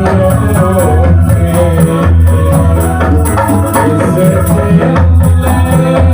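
Ndolalak dance music playing loudly: drums and frame drums keep a steady beat under a melody line.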